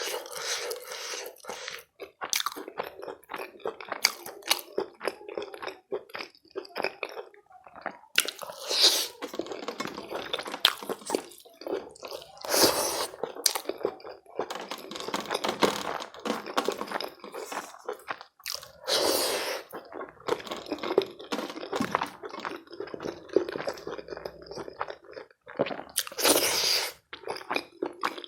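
Close-miked eating of chicken curry and rice: steady chewing with wet mouth sounds and crunching, broken by several louder bursts a few seconds apart.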